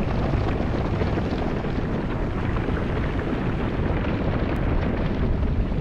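A large herd of Tibetan wild asses galloping across dry ground: a steady, dense rumble of many hooves.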